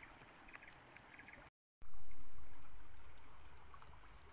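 Steady high-pitched insect chorus, cut by a brief drop to silence about a second and a half in, then a low rumble that starts suddenly and fades over the next two seconds.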